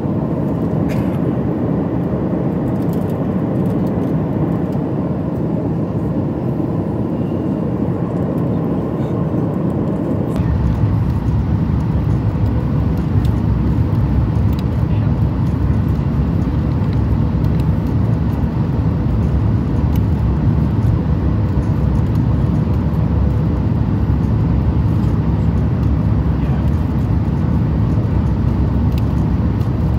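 Boeing 737 MAX 9 cabin noise at a window seat. It starts as a steady cruise hum with a faint constant tone. About a third of the way in it changes suddenly to a louder, deeper rumble of the jet landing, and this holds steady to the end.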